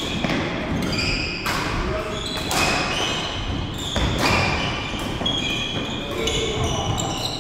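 Badminton rally in a large hall: sharp racket strikes on the shuttlecock about a second or so apart, ringing on in the hall, with trainers squeaking in short high chirps on the wooden court floor.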